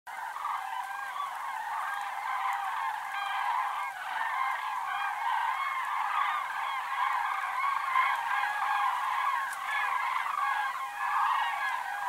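A flock of common cranes (Grus grus) calling in flight: many overlapping calls from many birds at once, a dense unbroken chorus.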